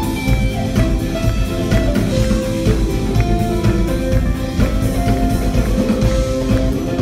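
Live rock band playing at full volume: electric and acoustic guitars over a drum kit, with notes held above a steady beat.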